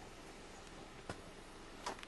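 Faint steady hiss with two short sharp clicks, one about a second in and a louder one near the end.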